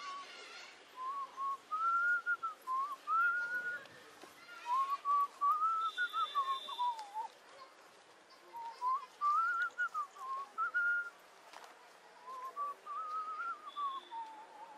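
A man whistling a tune by mouth: a wandering melody in short phrases with brief pauses between them.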